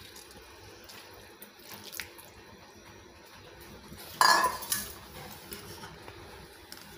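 Wet, cleaned anchovies being handled and spread in an iron kadai: quiet shuffling with a few light clicks, then a louder wet rustle about four seconds in.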